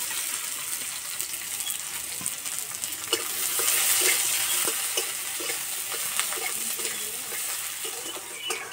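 Freshly added sliced onions sizzling in hot oil in a metal kadai. From about three seconds in, a metal spatula scrapes and knocks against the pan as they are stirred.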